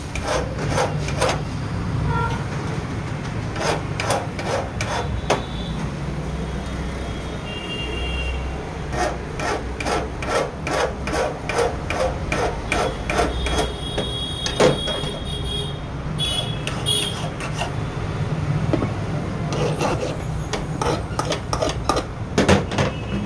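Flat hand file rasping across a Ford Figo key blade, cutting the key's notches by hand. Quick repeated strokes at about two to three a second, in runs with short pauses between them.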